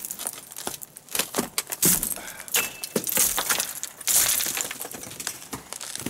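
Icicles and chunks of ice being knocked off a roof edge with a long pole: a run of sharp glassy cracks and clinks as the ice breaks and falls, with the loudest crashes about two, three and four seconds in.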